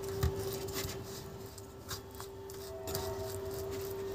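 Metal spoon scraping and stirring a thick masala paste around a stainless steel plate, in soft irregular scrapes and clicks, over a faint steady hum.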